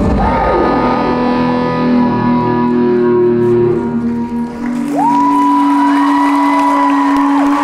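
Closing bars of a live band's song: the full music thins out to a few long held notes, one sliding up about five seconds in, holding, then sliding down near the end.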